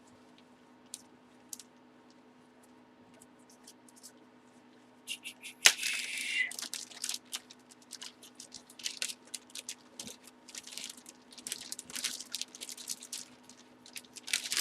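Plastic packaging crinkling and tearing as cards and wrapped items are handled. It starts about five seconds in with a loud tearing crinkle, then continues as irregular rustling and crackling, after a few quiet seconds with only light clicks.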